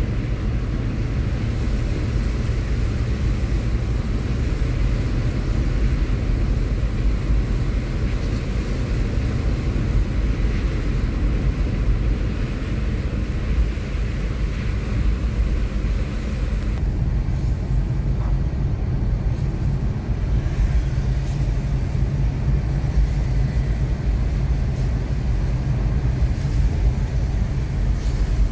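Steady low rumble of a car driving on a wet road, heard from inside the cabin: tyre and engine noise. The fainter high hiss drops away a little past halfway.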